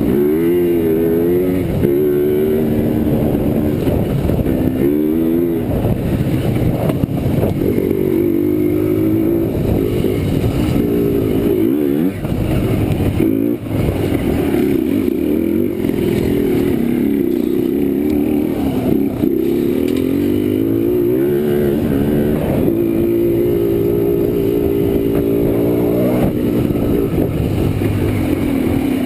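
Small youth ATV engine revving up and down as it is ridden over a dirt trail, its pitch climbing and falling again and again with the throttle.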